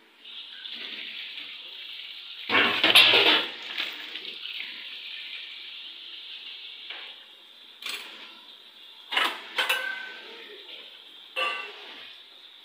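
Kitchen dishes and metal utensils clattering over a steady hiss, with a loud burst of clatter a few seconds in and several sharp clinks near the end.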